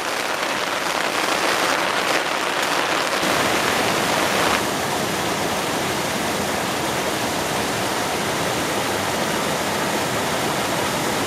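Steady rushing water noise of rain falling at a campsite beside river rapids. There is a denser patter for the first four seconds or so, then it evens out.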